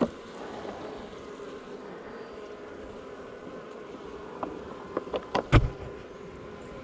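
Honeybees buzzing steadily in an opened hive, with a few sharp knocks a little past four seconds and around five seconds; the loudest comes about five and a half seconds in.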